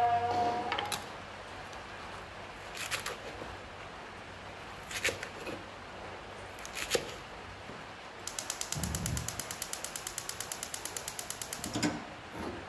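A steady pitched tone that stops within the first second, a few single clicks spaced about two seconds apart, then a fast, even run of mechanical clicks, about eight a second, for three or four seconds, ending with a louder click.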